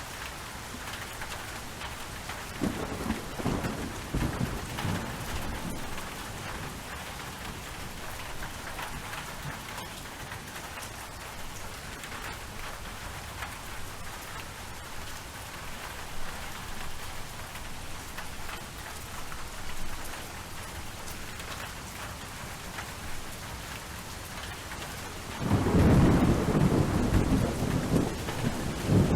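Thunderstorm ambience: steady rain falling, with a roll of thunder a few seconds in and a louder, longer rumble of thunder near the end.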